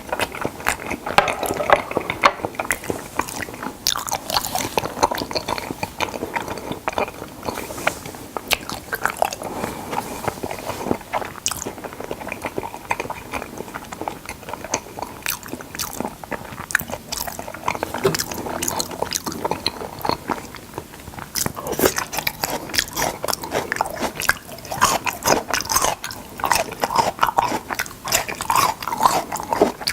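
Close-miked eating of salmon: continuous wet chewing and biting, with many quick smacks and clicks.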